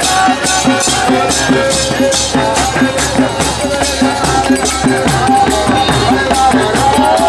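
Kirtan music: hand cymbals (karatalas) struck in a steady rhythm of about three strokes a second, with drumming and a sung melody line.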